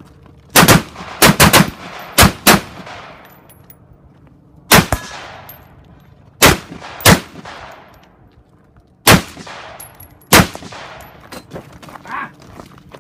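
Rifle shots fired on a practical-shooting (IPSC) stage: about ten loud, sharp shots, some in quick pairs and others spaced one to two seconds apart, each with a trailing echo.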